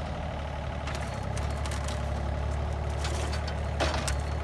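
Small excavator's engine running steadily, with scattered faint clicks and a brief crackle near the end.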